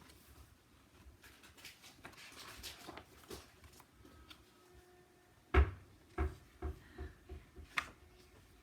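Handling noise: faint rustling, then a loud thump about halfway through followed by a few lighter knocks and a sharp click.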